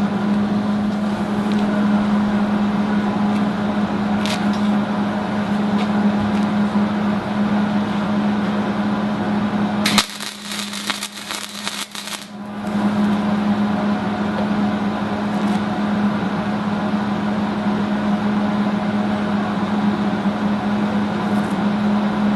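Wire-feed welder humming steadily, broken about ten seconds in by roughly two and a half seconds of the welding arc crackling and spitting as a short bead is laid, after which the steady hum carries on.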